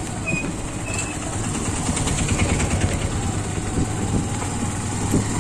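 Motorcycle engine running steadily at low speed, with wind and rough-road noise from riding over an unpaved, broken-up surface.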